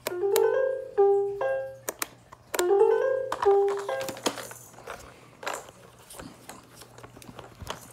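Electronic baby toy playing a short jingle of bright synthesized notes through its small speaker, in two quick phrases that stop about four seconds in. Scattered clicks and knocks of the toy being handled follow.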